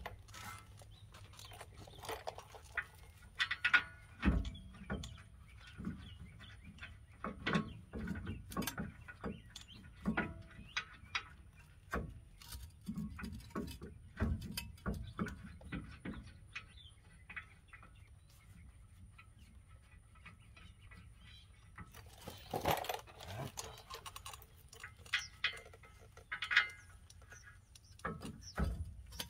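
Scattered light metal clicks and knocks as a truck's rear brake caliper assembly is fitted and its bolts started by hand, with a quieter stretch partway through.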